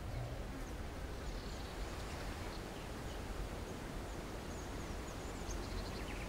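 Quiet outdoor ambience: a steady low rumble under a faint even hiss, with short, faint high chirps now and then.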